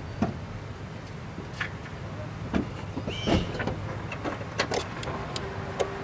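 Jeep Cherokee XJ engine idling with a steady low rumble and sharp ticks at irregular intervals, a noise the owner suspects may be lifter tick.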